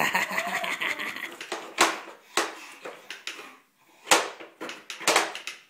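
Radio Flyer wooden walker wagon clattering as it is pushed across a parquet floor, with a loaded child inside, then a string of sharp separate knocks.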